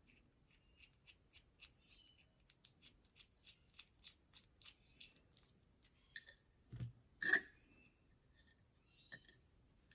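Faint, light metallic ticking of a small screw being undone from a tubular cam lock's housing, several ticks a second, with one louder clack about seven seconds in.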